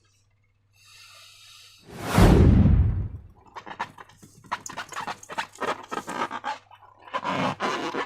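A loud rush of air escaping a balloon about two seconds in, then a long run of sticky clicks, crackles and squelches from slime being squeezed and handled.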